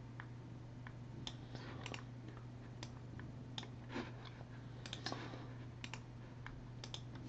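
Faint, irregular clicks of a computer keyboard and mouse, over a steady low electrical hum.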